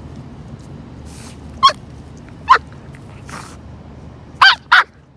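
Jack Russell Terrier puppy with its nose in a hole it is digging, giving short sharp whines and sniffs, about six in all, two close together near the end: frustrated, effortful digging.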